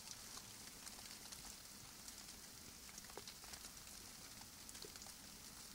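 Faint patter of raindrops: scattered light ticks over a soft hiss, barely above silence.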